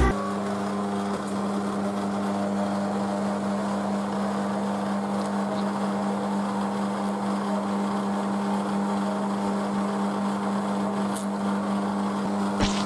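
Self-serve soft-serve ice cream machine running with a steady hum while it dispenses chocolate soft serve into a paper cup, with a couple of sharp clicks near the end.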